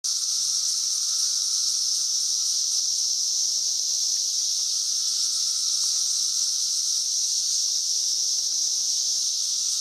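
Chorus of 17-year periodical cicadas at mass emergence: a steady, high-pitched drone with a fainter, lower tone beneath it, holding without a break.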